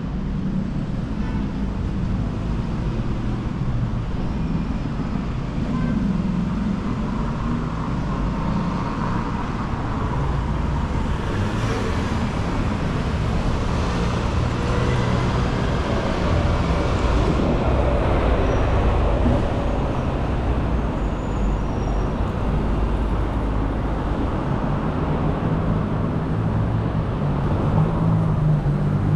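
City street traffic: cars driving past on the boulevard, a steady rumble of engines and tyres. One vehicle swells past about twelve seconds in, and a deeper engine grows louder near the end.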